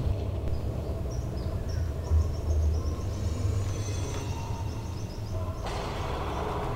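Low, steady rumble of a slow-moving car heard from inside the cabin, with birds chirping outside during the first few seconds.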